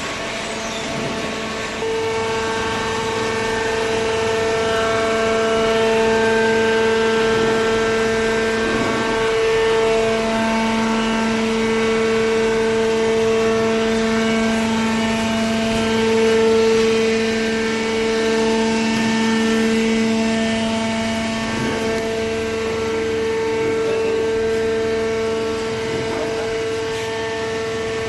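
Hydraulic cardboard baler running: a steady mechanical whine from its pump and motor, with held tones that shift as the load changes. It grows louder about two seconds in.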